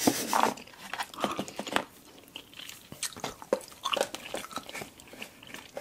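Close-miked chewing and biting of candy: wet mouth noises and small crunches, broken by scattered clicks.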